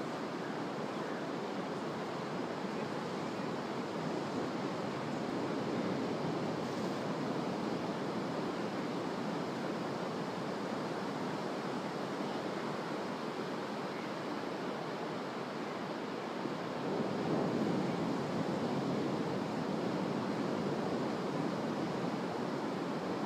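Ocean surf washing steadily onto a sandy beach, swelling a little about two-thirds of the way through.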